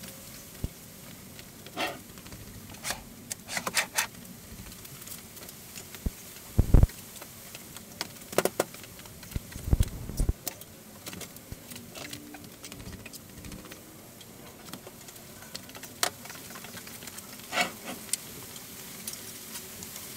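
Handling noises from assembling a DC1100 dust collector: scattered clicks, knocks and rubbing as the filter cartridge, plastic collection bag and fittings are handled, with two heavier thumps about seven and ten seconds in.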